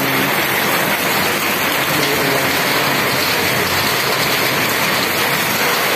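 Heavy rain pouring down as a steady, dense hiss.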